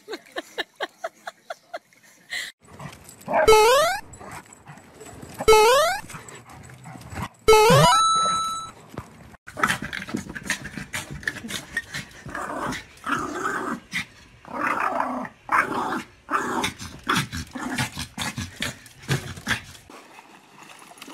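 Small dog barking and growling in quick, irregular bursts. In the first half come three loud rising sweeps about two seconds apart, the last followed by a short steady beep.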